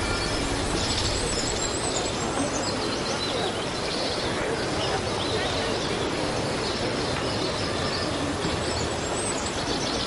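Film sound effect of a futuristic flying car running: a steady, even rushing noise with faint high chirps on top.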